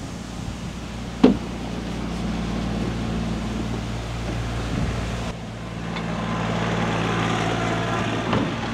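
An engine running steadily, with a single sharp knock about a second in.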